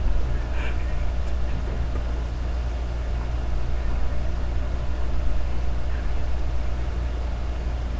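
Steady low electrical hum with hiss over it, unchanging throughout.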